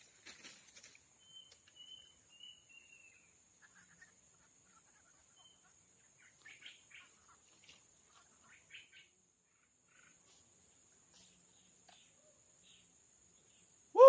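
Tropical forest ambience: a steady high-pitched insect drone, like cicadas or crickets, with a bird giving a row of short chirping notes in the first few seconds and scattered faint ticks. Right at the end comes one short, loud pitched call.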